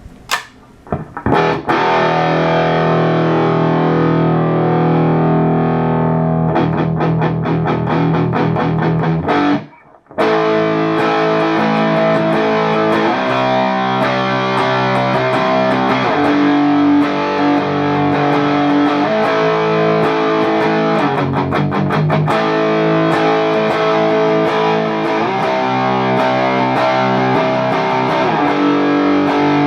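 Electric guitar played through a Carvin X100B tube amp on its distorted lead channel, during a test after repair: a held chord, then a burst of fast chugging strokes, a short break about ten seconds in, then continuous riffing.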